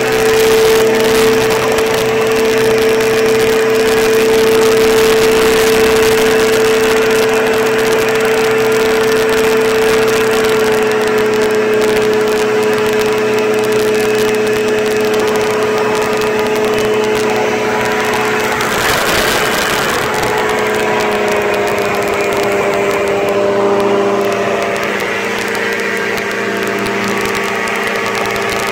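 Engine of an open-frame ultralight trike running steadily at high power through the takeoff roll and climb, its pitch sagging slightly a couple of times. A brief rush of wind noise cuts in about two-thirds of the way through.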